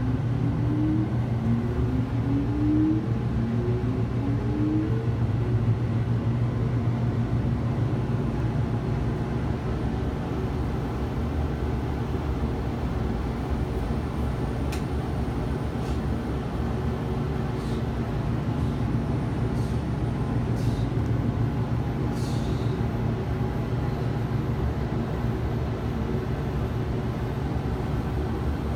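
Steady low hum and rumble inside a moving Ferris wheel gondola, with a few short rising tones in the first few seconds and faint light clicks about halfway through.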